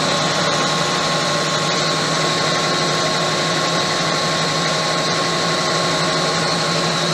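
Gardner 2H30-30 double disc grinder's right grinding head running steadily under its 30 hp three-phase spindle motor, which turns a 30-inch wheel. A constant low hum with a steady higher tone, unchanging throughout.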